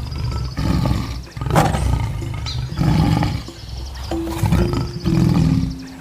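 A tiger growling and roaring in a run of short, rough bursts about a second apart, over background music.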